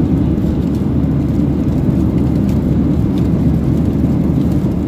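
Steady low drone of an airliner cabin in flight: engine and airflow noise.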